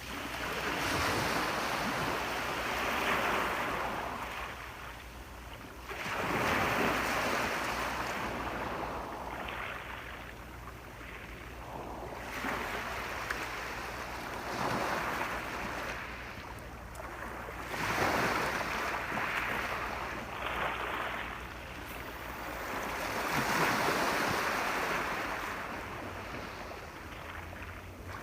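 Sea waves breaking and washing up the shore, a surge of surf roughly every five to six seconds that swells and then fades.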